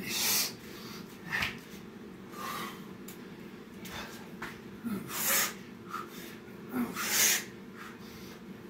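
A man breathing hard while doing burpees: forceful, noisy exhales every second or two, the loudest at the very start and about five and seven seconds in.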